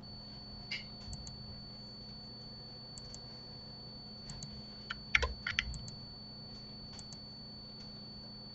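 Scattered clicks of a computer keyboard and mouse, a quick cluster of several about five seconds in, over a low steady electrical hum with a faint high whine.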